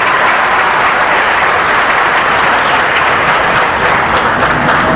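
Audience applauding: a crowd of people clapping steadily.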